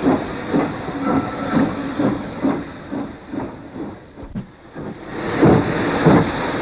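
Steam locomotive working slowly: even exhaust puffs about two a second under a steady hiss of steam. The sound dips briefly about four seconds in, then comes back with the hiss swelling loud near the end.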